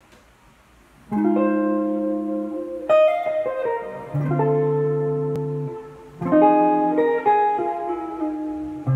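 Semi-hollow electric guitar and stage piano playing sustained chords together, starting about a second in, with a new chord struck every second or two.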